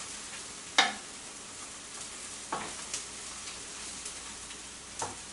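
Food sizzling in a frying pan, a steady hiss, with a few sharp clicks of a utensil against the pan, the loudest about a second in.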